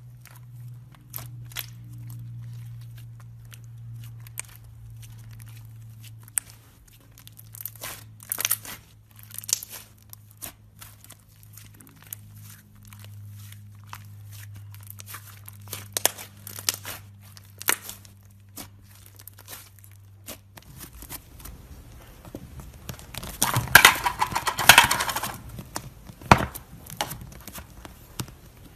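Hands stretching, folding and squishing thick slime: a run of sticky clicks, pops and crackles as it pulls apart, with a louder stretch of crackling and tearing about two-thirds of the way through. A faint low hum sits under the first part and stops about two-thirds through.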